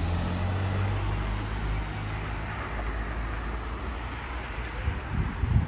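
A motor vehicle's engine running close by, its low hum fading over the first couple of seconds and leaving steady street traffic noise. A few short low thumps near the end, like wind buffeting the microphone.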